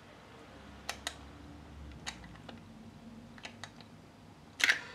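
Light, scattered clicks of a socket turning the nylon-insert lock nut that holds the plastic reservoir onto a brake master cylinder, with a louder clatter of the tool near the end.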